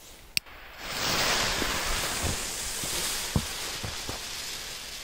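A click about half a second in, then a steady hiss from a lit firecracker fuse burning down, slowly getting weaker, with a few soft thuds underneath.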